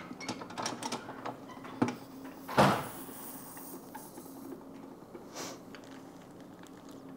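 Sausage-stuffing equipment being handled: a series of clicks and knocks, then about two and a half seconds in a loud short rush of air that trails off as a hiss, over a steady low hum.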